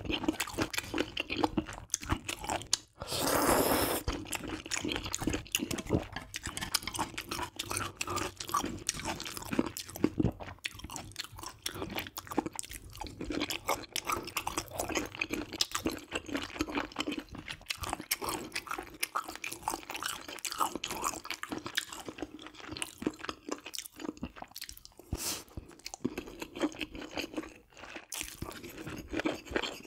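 Close-miked chewing and wet mouth sounds of a person eating spicy stir-fried webfoot octopus and noodles, irregular and continuous. There is a louder noisy burst about three seconds in.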